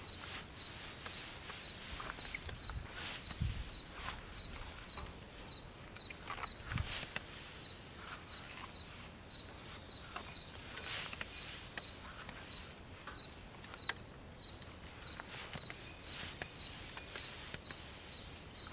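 Insects chirping steadily in the field, one high chirp repeating about twice a second over a constant high buzz. Scattered rustles and soft footsteps come through, from someone moving about in cut, dry grass.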